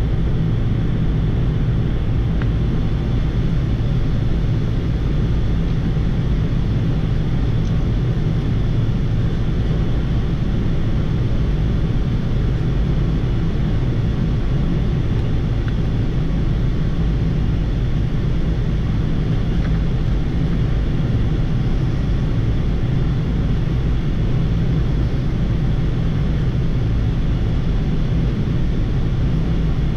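Steady flight-deck noise of a Boeing 787-8 airliner on short final approach: a constant low rumble with a hiss above it, from airflow and engines, unchanging throughout.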